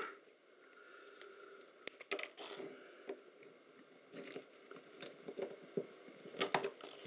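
Faint scattered crunches and a few sharp clicks as a small circuit-board module packed with crumbly yellow potting compound is turned over in the fingers, the compound crackling under the grip.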